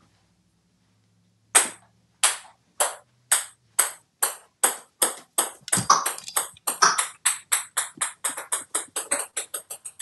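A small hard ball bouncing on a shower floor. The bounces start about a second and a half in, each with a high ping, and come quicker and quicker until they run together into a fast patter.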